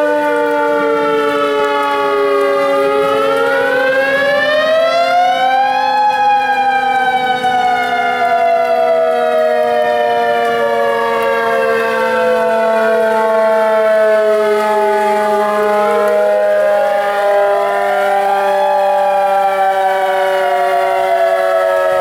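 Several outdoor tornado warning sirens sounding at once, loud. One wails slowly up and down in pitch, while another holds a steady tone that sinks gradually lower.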